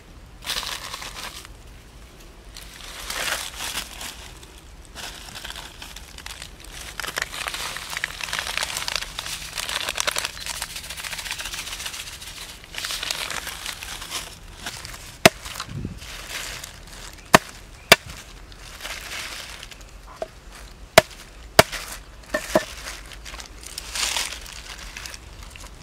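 Crinkling and rustling of a plastic seasoning packet and bag as seasoning is shaken over pork in a plastic bowl, followed in the second half by about six sharp knocks of a knife against a wooden block while garlic is cut.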